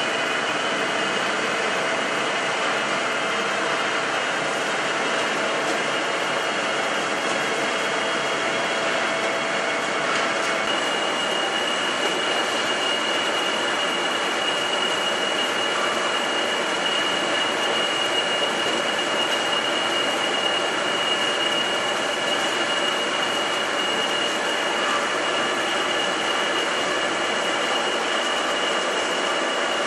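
Film slitting-rewinding machine running steadily: a dense mechanical rush and hum with a thin whine. About ten seconds in, the whine changes to a higher one.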